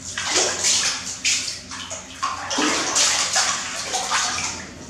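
Water splashing and sloshing in a large aluminium basin as a baby monkey thrashes and paddles in it: a quick run of loud splashes that dies away shortly before the end.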